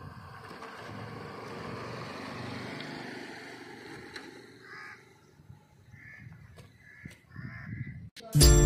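Steady outdoor background noise, then a crow cawing about four times, short harsh caws in the second half. Loud music cuts in abruptly at the very end.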